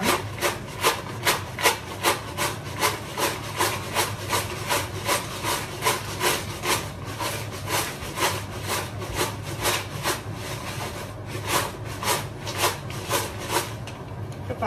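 Crisp fried tapioca chips being tossed and mixed with spice powder in a vessel: a dry, rattling scrape repeated about two to three times a second.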